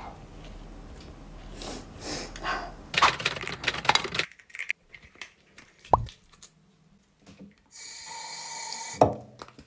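Handling noises at a bathroom sink: a sharp click, then a bathroom tap running for about a second, cut off by another sharp click near the end. Before that, a steady hiss and hum with some scuffing.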